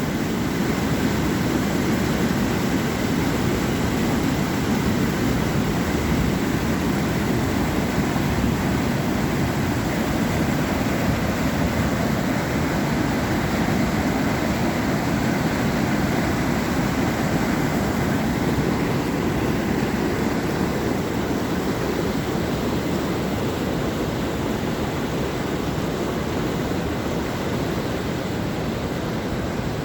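Water pouring over a dam, a steady, deep rushing noise.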